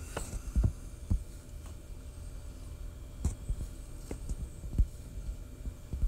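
Handling noise: a few soft, low thumps at irregular times over a steady low hum.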